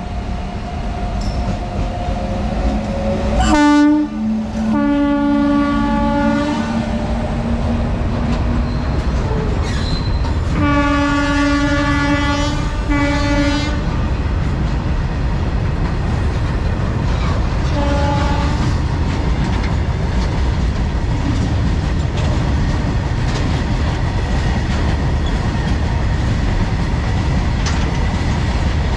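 Indian Railways freight train running by with a steady rumble and wheel clatter, while the locomotive sounds its horn. There is a short blast and then a longer one a few seconds in, a long blast broken by a brief gap around the middle, and a short toot a few seconds later.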